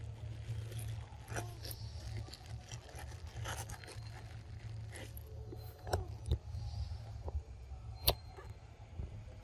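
A steady low rumble on the microphone, with scattered light scrapes and clicks, and one sharp click about eight seconds in.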